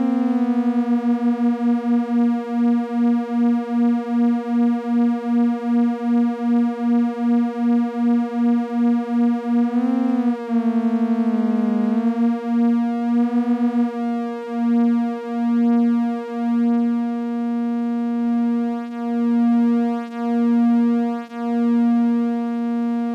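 Two analog function generator modules, a Behringer Abacus and a Make Noise Maths, self-cycling at audio rate as oscillators, giving a steady buzzy synth drone. The two are nearly at the same pitch, so the tone pulses evenly about two and a half times a second. About halfway through, the pitch briefly dips and wobbles and the pulsing goes rapid, then slows to about one pulse a second as the knobs are turned to bring the two into tune.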